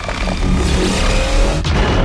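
Mechagodzilla sound effect from the 2021 Monsterverse film: a dense mechanical rumble, heavy in the low end, with thin whirring tones and one slowly gliding tone, dipping briefly twice near the end.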